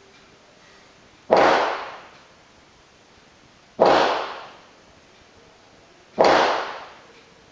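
Three smallbore rifle shots on a shooting range, about two and a half seconds apart, each a sharp crack trailing off in the range's reverberation.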